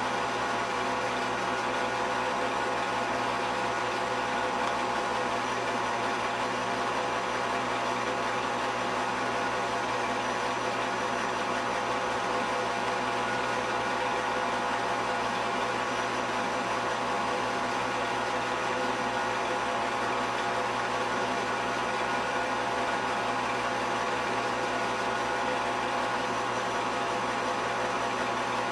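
Film projector running: a steady mechanical whir with a fixed hum and a fine, fast flutter, unchanging.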